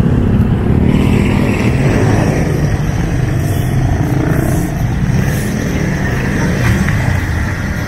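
Road traffic close by: car, van and motorcycle engines running, a steady low rumble.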